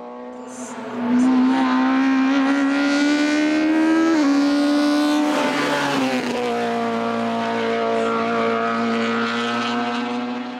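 Honda Civic Type R race car's four-cylinder engine running hard at high revs, loud from about a second in. The pitch climbs for the first few seconds, falls back in steps around four and six seconds in, then holds steady.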